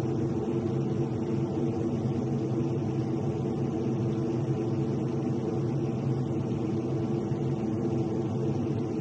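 Steady drone of an Aermacchi MB-339's Rolls-Royce Viper turbojet heard from inside the cockpit: a constant hum with several steady tones and no change in pitch.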